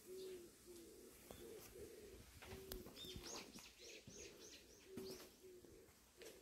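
Faint birdsong: low, short cooing notes repeated over and over. About three seconds in comes a quick run of high, falling chirps.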